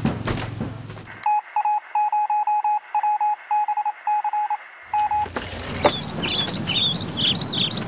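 A thin, telephone-band beeping: a single steady tone keyed on and off in an irregular run of short and long beeps, like Morse code. It starts about a second in and stops near five seconds, after which high chirps that glide up and down follow.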